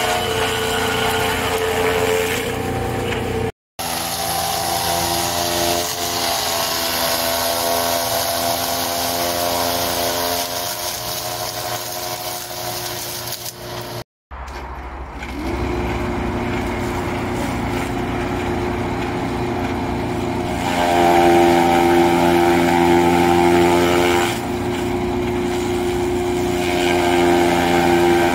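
Chaff cutter running steadily with an even hum, chopping green corn stalks and leaves as they are fed in. The sound cuts out abruptly twice, at about 3.5 and 14 seconds, and grows louder from about 21 seconds.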